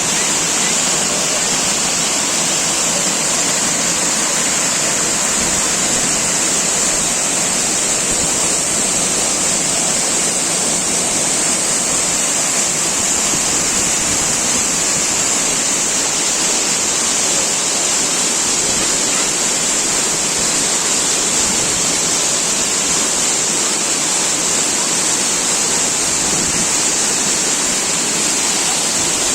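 Mençuna waterfall: falling water making a steady, unbroken rush with a strong hiss.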